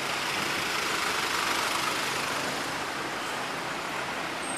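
Steady city road traffic: car and bus engines and tyre noise of vehicles passing on the street, swelling a little in the first couple of seconds.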